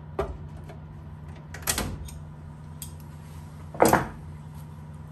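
A few knocks and clatters of hand tools being handled against a bare aluminium aircraft fuselage: a light one at the start, a louder clatter a couple of seconds in and the loudest clunk near four seconds in, over a steady low hum.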